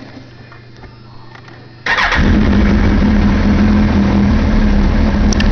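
A 2004 Suzuki GSX-R1000's inline-four engine with a Yoshimura aftermarket exhaust is started. It fires up suddenly about two seconds in and then runs at a steady, loud idle.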